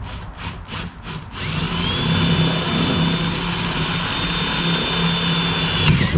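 Cordless drill boring a 5/16-inch cobalt twist bit into a plywood soffit. After a few short rasps, the motor spins up about a second and a half in to a steady high whine. The whine dips in pitch and stops at the end.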